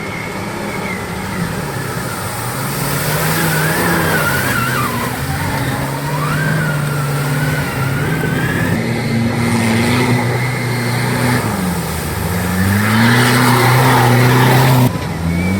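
Off-road 4x4 engine revving hard under load, its pitch climbing and dropping in steps as the throttle and speed change, with a high wavering whine over it for the first half. The sound changes abruptly shortly before the end.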